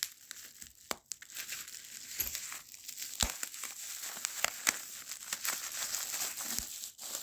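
Packaging crinkling and rustling as a rifle scope is unwrapped by hand, with many small crackles and clicks throughout.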